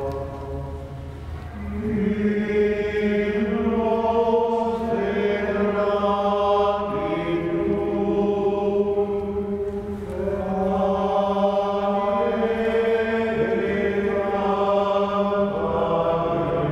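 Liturgical chant sung by several voices in slow, long-held notes, in two phrases with a brief break about ten seconds in.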